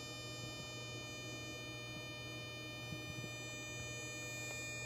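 Steady electrical whine with a stack of overtones from a toroidal step-up transformer pulsed at 608 Hz by a 555 PWM controller and MOSFET, driving water-fuel cells during electrolysis.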